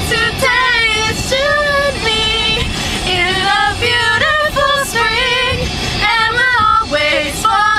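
Female voices singing along with a pop song playing on the car stereo, heard inside the car.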